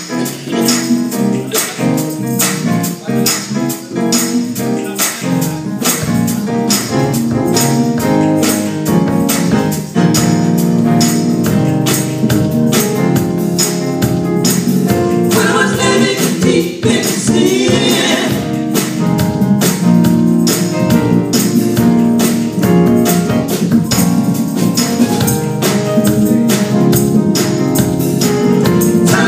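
Gospel choir singing with a live band over a steady tambourine beat, the voices swelling strongly about halfway through.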